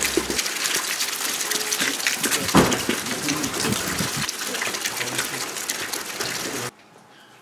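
Steady rushing hiss, like running water, under faint men's voices, with one sharp thump about two and a half seconds in. Near the end it cuts abruptly to quiet indoor room tone.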